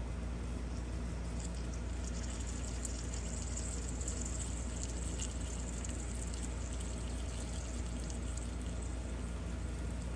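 Heavy-duty soldering gun humming steadily as it heats a copper cable lug. Solder and flux are sizzling and crackling from about a second in, dying down in the last couple of seconds.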